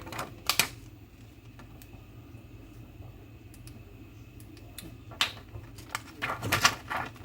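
Sharp clicks and taps of small tools and phone parts being handled on a repair bench: a couple near the start, then a quick cluster near the end, over a steady low hum.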